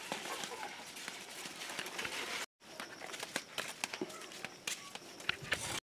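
Footsteps on a dirt and stone path, with rustling of maize leaves and a scatter of sharp clicks and knocks. The sound cuts out for a moment about halfway through.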